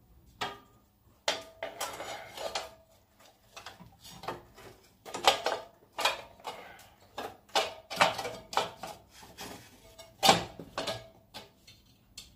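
Perforated aluminium heat-sink assembly of a power amplifier being handled and set down against its metal chassis: irregular metallic clanks and rattles, the loudest about five and ten seconds in.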